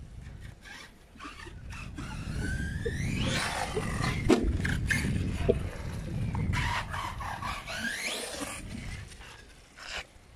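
Arrma Outcast 6S electric RC truck's brushless motor whining up in pitch as it accelerates, twice, over a low rumble of the tyres, with a few sharp knocks in the middle.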